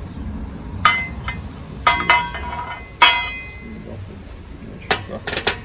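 Pieces of steel knocking together: a square steel tube being handled and set against a steel bar. Three sharp, ringing metallic clinks about a second apart, followed by a few lighter clicks near the end.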